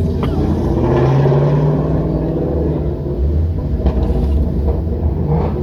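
Steady low rumble of a car's engine and road noise, heard from inside the car.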